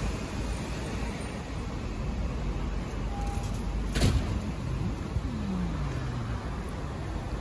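Steady low rumble of road traffic, with a sharp click about four seconds in and a low hum sliding down in pitch soon after.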